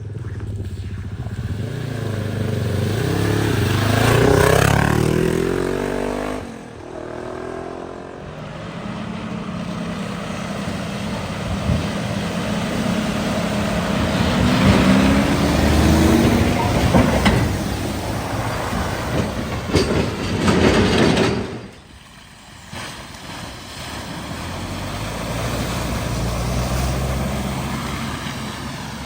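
Cars' engines driving through a flooded ford one after another, each rising in pitch as it pulls through, with water splashing from the tyres. One pass fades around six seconds in, a longer, splashier one stops abruptly about three quarters of the way through, and another vehicle starts to approach near the end.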